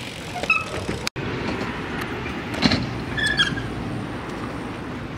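BMX tyres rolling on a concrete skatepark, a steady low rumble with a few clicks and a short high squeak about three seconds in.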